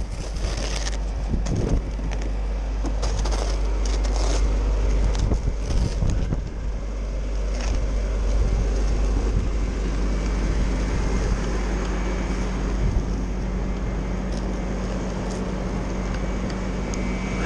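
Blizzard wind buffeting the microphone with a deep steady rumble, with short crackling crunches in the first half. A steady low hum joins about halfway through.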